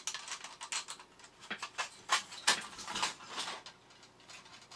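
Handling noise from a tin toy robot being worked on by hand: irregular clicks, taps and scrapes of its sheet-metal body and parts, busiest in the middle.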